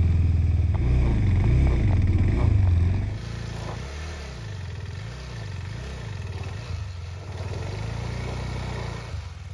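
Motorcycle engine, the KTM 390 Adventure's single-cylinder, revving up and down under load on super slippery mud. About three seconds in the sound cuts to a quieter stretch where the revs keep rising and falling.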